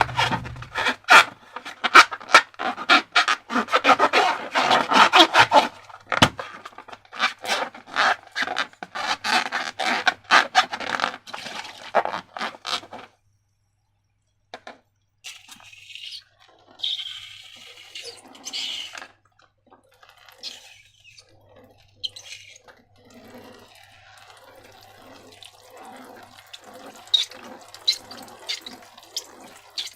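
Slime squishing and squelching in rapid, dense, sticky crackles. It stops for a moment about halfway, then carries on more quietly with a few short high squeaks.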